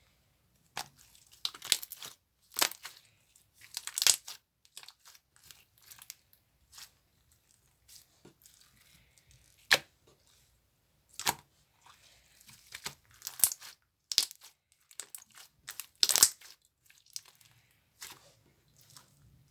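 Green slime being squished and stretched by hand, giving irregular sharp crackles and pops with short quiet gaps between them.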